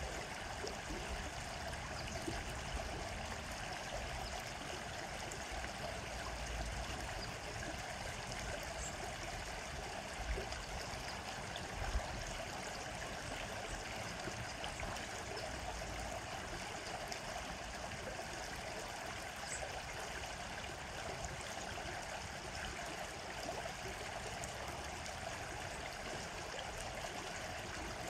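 Steady rush of flowing stream water, even and unchanging, with two soft low bumps near the middle.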